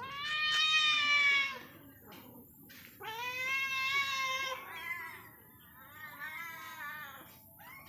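Street cats meowing at feeding time: two long, drawn-out meows of about a second and a half each, then a run of shorter meows.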